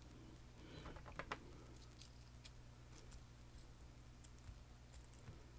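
Faint, scattered small metallic clicks and taps from handling a freshly picked M&C Condor lock and its tools.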